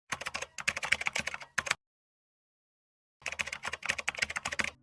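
Fast clicking of typing on a keyboard, in two runs of about a second and a half each, with a dead-silent gap between them.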